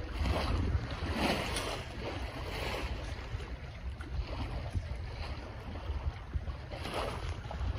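Wind buffeting the microphone over the rush and swish of water along the hull of a MacGregor 26D sailboat under sail, the water sound swelling in irregular surges.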